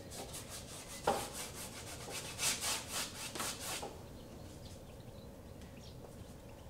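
Large paintbrush rubbing acrylic paint onto a canvas in quick, repeated horizontal strokes, with one sharp tap about a second in. The brushing stops about four seconds in, leaving only faint sound while the brush is loaded at the palette.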